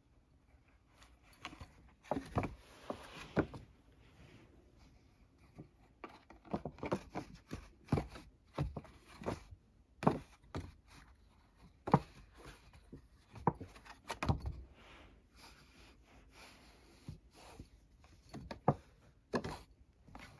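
Irregular taps, scratches and knocks of a cat pawing into the holes of an empty cardboard tissue box and bumping the box about, with short flurries and pauses between them.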